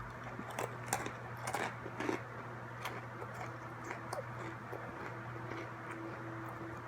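Soft chewing and wet mouth clicks, scattered mostly over the first three seconds, over a steady low electrical hum.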